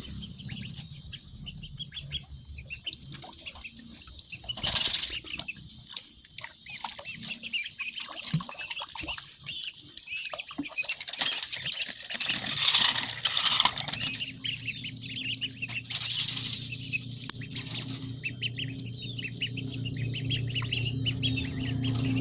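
Ducklings peeping: many short, high chirps throughout, broken by a few brief loud bursts of splashing and fluttering. A steady low hum sets in about halfway through.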